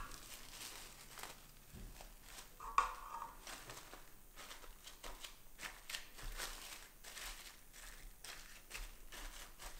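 Faint, irregular crinkling and rustling of plastic cling film being stretched over a ceramic bowl and pressed down onto pastry cream, with one sharper tap near three seconds in.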